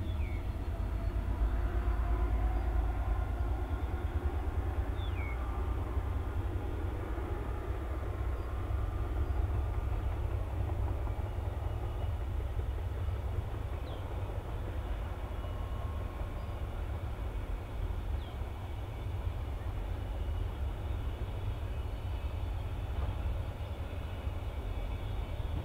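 Freight train passing, a diesel locomotive pulling a long string of intermodal container wagons, with a steady low rumble and the noise of the wagons rolling by. A few short high chirps sound over it.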